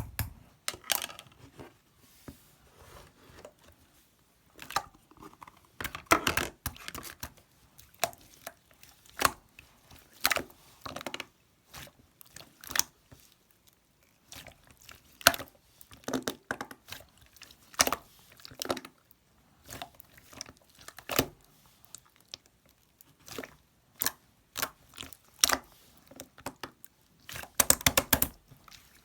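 Hands working a slime, pressing and pulling it: irregular sharp pops and crackles, some in quick clusters, with short quiet gaps between.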